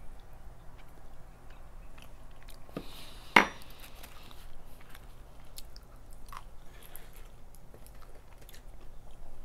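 A person chewing a mouthful of red beans and rice, with small wet mouth clicks throughout and one sharp click a little over three seconds in.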